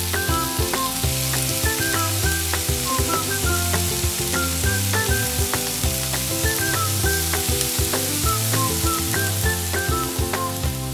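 Cubes of tofu deep-frying in a wok of hot oil, a steady sizzle, stirred with a metal ladle. Background music with a bass line and a light melody plays under it.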